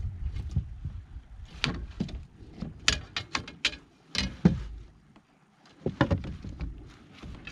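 Clicks, knocks and clatter of fishing gear and the landing net against a plastic kayak as a just-landed largemouth bass is handled, with one louder thump past the middle. A low rumble runs under the first half and drops away.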